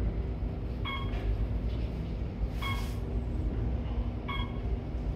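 Lift car travelling between floors: a steady low rumble with a faint hum from the lift machinery. A short electronic beep sounds about every 1.7 seconds, three times.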